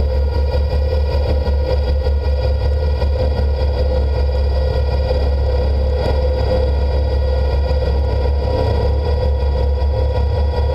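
Tractor and grain cart running steadily while the cart unloads, the grain in it draining away. A constant machine drone with a strong low hum and a steady mid-pitched whine, unchanging throughout.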